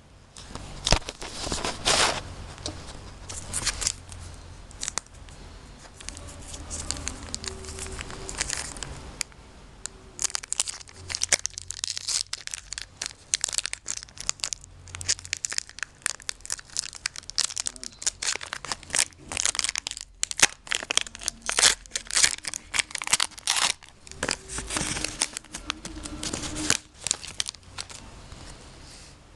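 Foil wrapper of a trading-card pack crinkling and tearing as it is opened and handled by hand, a long irregular run of sharp crackles.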